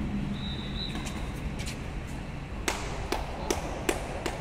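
Badminton players' shoes and play on an indoor court: a brief high squeak about half a second in, a few sharp smacks a second in, then about five sharp, evenly spaced smacks, a little under half a second apart, in the second half.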